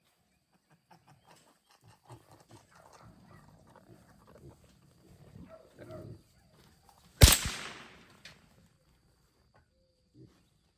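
Wild hogs grunting and shuffling, then a single sharp .22 Long Rifle shot about seven seconds in.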